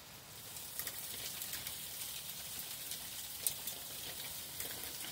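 Small hailstones falling on paving and garden plants: a steady high hiss full of sharp ticks that swells about half a second in, with one louder tick about three and a half seconds in.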